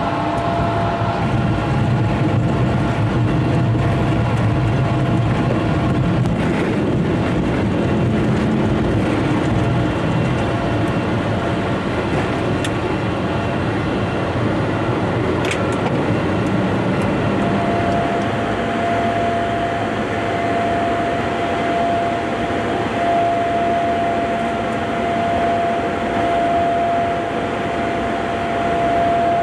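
Steady engine and airflow noise inside a jet aircraft's cockpit in flight. A steady high tone joins about two thirds of the way through and holds.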